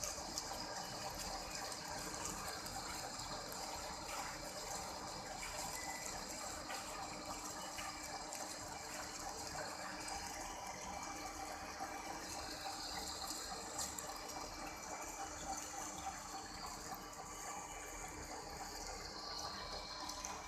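Lathe running and cutting a heavy workpiece with two tools at once: a steady rushing noise with faint steady tones, unchanging throughout.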